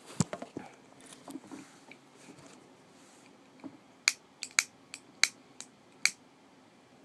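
Sharp clicks of a lighter being struck to make smoke: a few just after the start, then about seven quick, irregular clicks in the second half.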